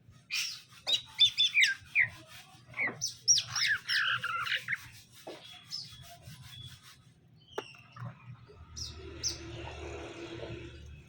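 Green leafbird (cucak ijo) calling in quick, varied chirps and gliding whistles, densest in the first five seconds and sparser after. A scratchy rustling runs underneath from about eight seconds in.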